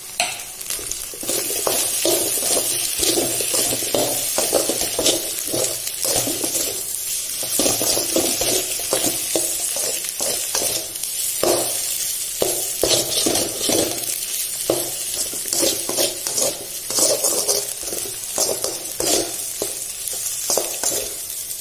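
A slotted metal spatula scraping and stirring scrambled egg around a metal kadai, stroke after stroke, over a steady sizzle of frying. The egg is being fried until it breaks into dry crumbles.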